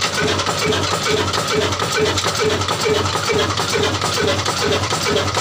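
Old Pakistani-built Shareef Ruston-type stationary diesel engine running steadily, with an even beat of about three to four strokes a second over a low hum.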